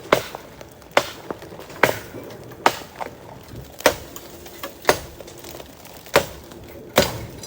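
A hand tool striking wood in steady blows, about one a second, with lighter knocks between the main strokes.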